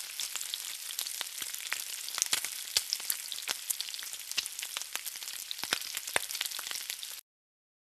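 Food frying in hot oil: a steady sizzle with many sharp crackles and pops, cutting off suddenly near the end.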